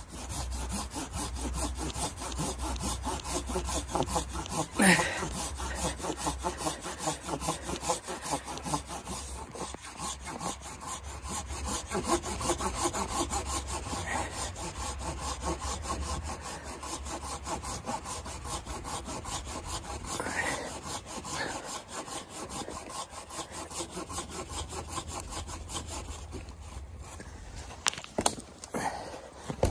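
Folding hand saw cutting through a dead log with quick, steady back-and-forth strokes. The sawing stops shortly before the end and is followed by a few sharp knocks.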